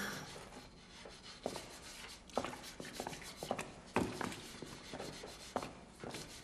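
Faint rubbing and scraping of hand work at a wooden kitchen table, with a few scattered light knocks and clicks.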